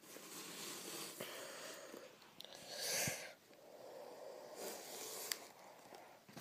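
Rustling and scraping of a homemade cardboard and duct-tape mask being pulled down over the head, with a few light clicks and a louder rush of rustle or breath about three seconds in.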